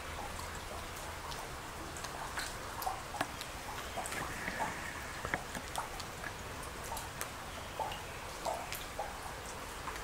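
Water dripping from a cave's rock ceiling into a shallow pool: irregular single drips, one or two a second, over a faint steady hiss.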